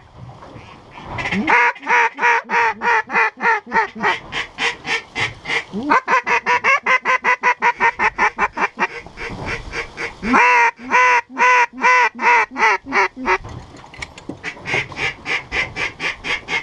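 Mallard duck call blown by a hunter in long strings of rapid, evenly spaced quacks, about five a second, in several runs with short breaks, calling to ducks in flight to bring them in.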